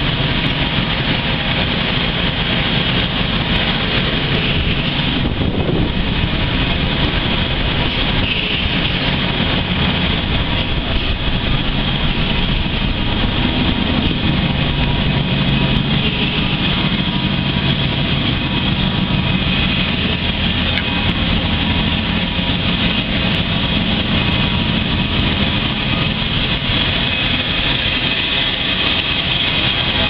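Steady, loud machinery drone of an oil and gas process module, with pumps and flowing pipework running. It is a wide rushing noise with a few faint steady hums and a hiss on top, and it does not change.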